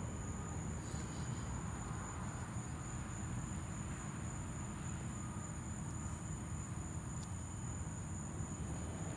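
Steady, unbroken high-pitched trilling of night insects, over a low rumbling background noise.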